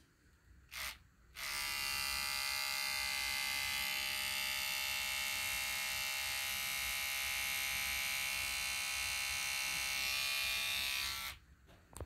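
Electric toothbrush buzzing steadily for about ten seconds after a short blip, then stopping. Its back is held lightly against tomato flowers to vibrate the pollen loose for hand-pollination.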